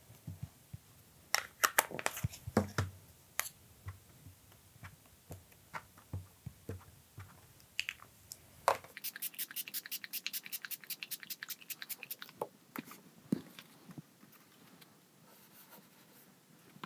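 Plastic ink pads knocking and clicking against a plastic craft mat as ink is dabbed on, a handful of separate sharp taps. About halfway through comes a quick, even run of light scratchy taps, roughly nine a second for three seconds, then a few soft taps as paper is handled on the mat.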